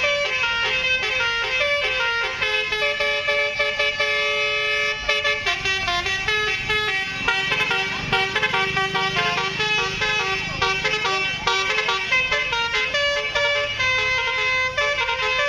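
Musical 'telolet' multi-tone air horns on Indonesian tour buses playing fast melodies of short stepped notes, one phrase after another without a break.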